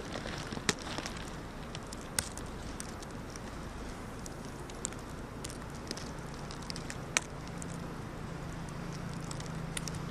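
Steady outdoor wind noise with a few sharp clicks and fainter ticks scattered through it, and a low steady hum coming in about halfway through.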